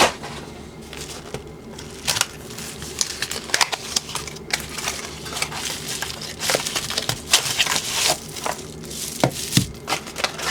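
Plastic packaging crinkling and rustling in the hands, with scattered small clicks and knocks, as items are unpacked from a box.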